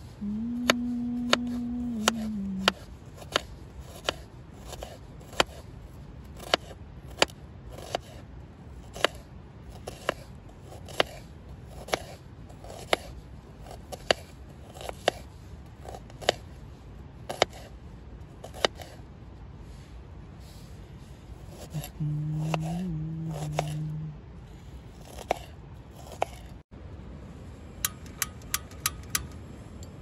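Knife blade tapping down on a wooden cutting board while slicing onions, a sharp tap about every half second to second. Two steady pitched tones, each about two seconds long, sound over it, one near the start and one about two-thirds of the way in. A quick run of clicks comes near the end.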